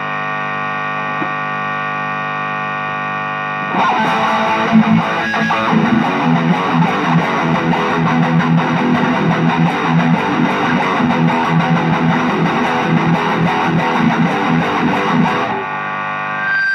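Electric guitar amp fed through a Blackstar HT-Metal pedal on its high-gain Channel 2: for about the first four seconds a steady buzzing hum, then distorted electric guitar is played for about twelve seconds, and near the end the steady hum returns. The hum is the pedal's noise when the strings are not held, which the player, from his own trials, puts down to Channel 2's very high gain.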